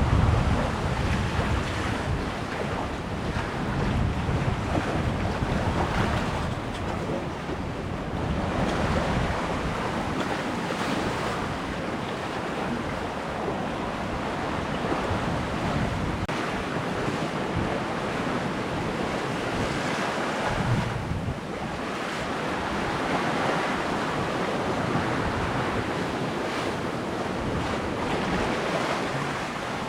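Waves and water rushing along the hull of an Island Packet sailboat under sail, swelling and easing every few seconds, with wind buffeting the microphone.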